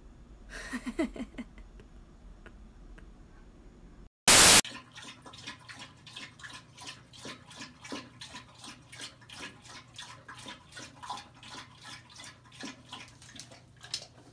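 Dog lapping water from a toilet bowl, a steady run of wet laps at about three to four a second, starting about five seconds in. Just before it comes a short, loud transition noise, the loudest thing here.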